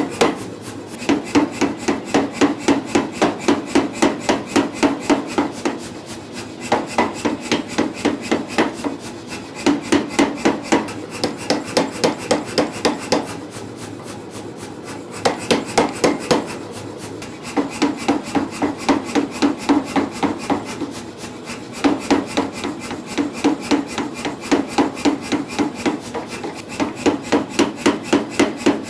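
Power hammer drawing out a taper on a hot bar of 4140 steel: runs of rapid, even blows, about four to five a second, each run lasting a few seconds with short pauses between.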